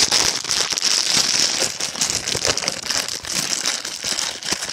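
Plastic bubble wrap being unwrapped and crinkled close to the microphone: a dense, continuous crackling.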